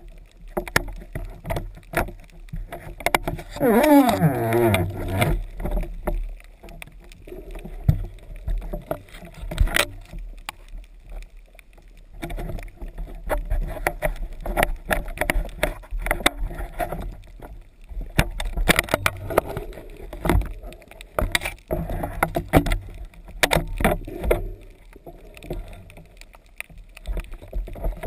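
Windsurfing heard from a camera on the rig: wind rumbling on the microphone, with irregular knocks and splashes as the board runs through the chop. A brief rising tone sounds about four seconds in.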